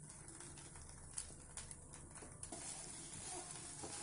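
Wooden spatula stirring poha upma in a frying pan, with faint scraping taps. A soft sizzle of the frying flakes comes up about two and a half seconds in.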